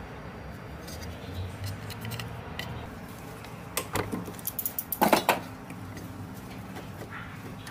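Sieg C2 mini lathe running with a steady motor hum, with a few sharp metallic clicks and scrapes about four and five seconds in.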